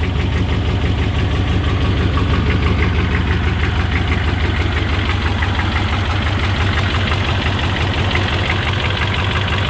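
GM 6.5 L turbo-diesel V8 idling with a steady diesel clatter. The engine is running extremely rough from a fault the owner has not yet found.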